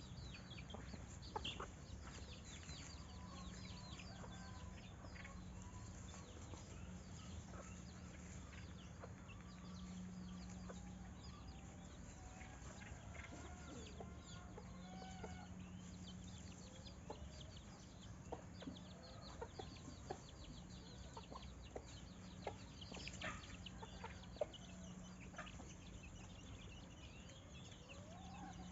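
Chickens clucking faintly, with scattered short bird chirps, over a steady low hum.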